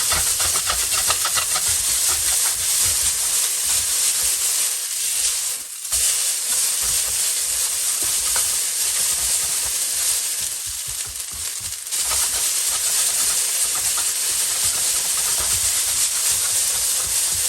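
Noodles sizzling steadily in a wok hot enough to smoke while being stir-fried, the sizzle easing briefly twice.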